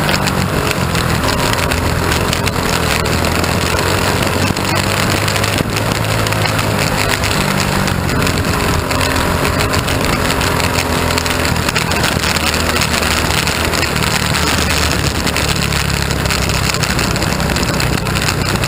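Mini wedge dirt-track race car's engine running at racing speed, heard from inside the open cockpit, loud and steady, with its pitch easing off and picking up again a few times as it goes through the turns.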